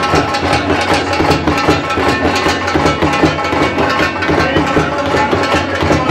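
Large nobat kettle drums beaten rapidly and continuously with sticks, a dense, unbroken drumming for dhamaal.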